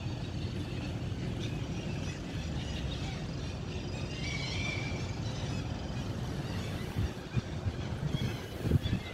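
Gulls calling over a steady low rumble, a few calls about four seconds in and more near the end, with some low knocks near the end.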